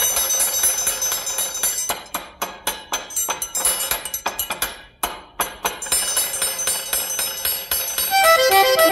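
Percussion intro of a xaxado, a Northeast Brazilian forró-style tune: a triangle ringing over quick, busy drum and tambourine beats. The accordion comes in near the end with a run of melody notes.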